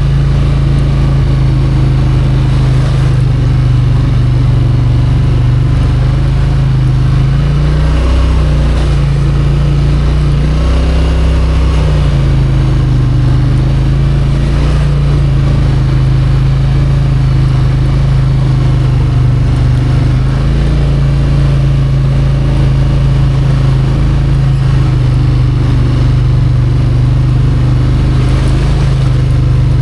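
Off-road vehicle engine running steadily under way, its pitch dropping and picking up again twice, about eight and eleven seconds in.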